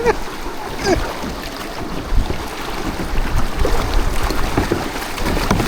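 Wind buffeting the microphone over a steady rush of river water around a canoe, with a brief shout about a second in.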